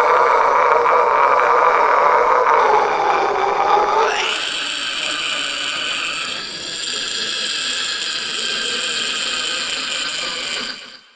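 A man's long sustained vocal cry, run through a voice effect: a lower wavering tone that jumps about four seconds in to a high held screech, which cuts off suddenly near the end.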